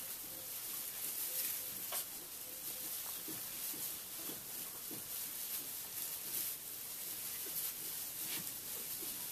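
Newborn Tamworth x Large Black piglets rustling and shuffling through straw bedding, a steady crackle of dry straw, with short soft grunts now and then.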